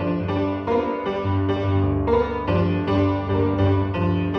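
Piano-led instrumental music, chords struck in a steady bouncing rhythm over low bass notes, with no singing.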